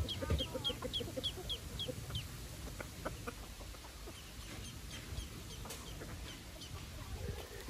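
Chickens at feed: a chick peeping in short high falling notes, about three a second, over a hen's lower quick calls, both stopping about two seconds in. After that only a few faint calls and clicks.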